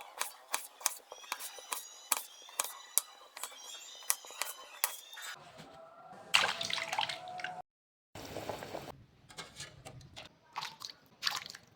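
Kitchen food-prep sounds: a quick series of sharp knocks, then water splashing and sloshing. The sound cuts out completely for a moment partway through, then the knocks resume.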